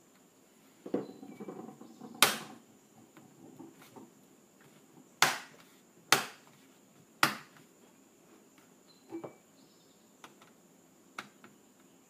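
A laptop's plastic bottom access panel being pressed down so that its clips snap into place: a short scraping rustle, then four sharp plastic clicks over about five seconds, followed by a few fainter ticks.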